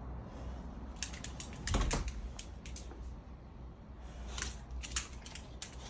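Dogs' claws clicking irregularly on a hard wooden floor as two bully dogs shift about, with a duller thump about two seconds in.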